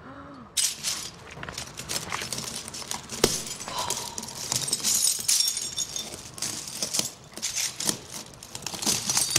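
Broken bottle glass clinking and crunching under bare feet as a person walks across a pile of shards, with irregular sharp clinks starting about half a second in.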